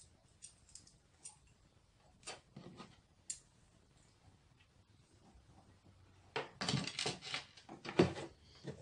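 Plastic parts of a hot glue gun being handled and pulled apart, clicking and rattling: a few light clicks, then a denser clatter in the last couple of seconds, loudest about 8 seconds in.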